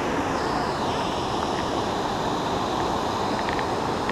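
Steady roar of a waterfall, an even rushing of falling water.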